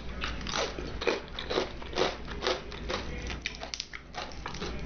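Close-miked crunchy chewing of fried chicken: a steady rhythm of crisp crunches, about two a second.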